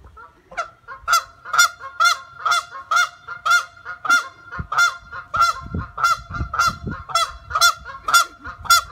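An angry goose honking over and over, short harsh honks at about two a second, keeping up a steady run of calls.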